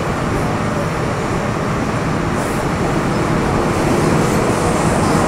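Metro Cammell M-Train EMU running at speed, heard from inside the car: a steady rumble of wheels and motors with a low hum underneath, getting a little louder after about four seconds.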